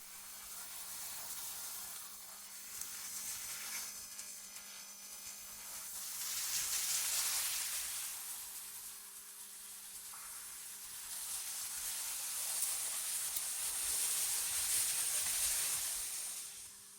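Generated wind ambience: a high, airy hiss that swells and fades in slow gusts, strongest about seven seconds in and again from about twelve to sixteen seconds, over a faint steady low hum.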